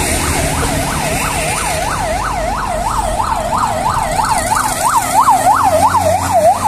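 An electronic siren in a fast yelp, its pitch swooping up and down about three times a second, growing louder about two-thirds of the way through.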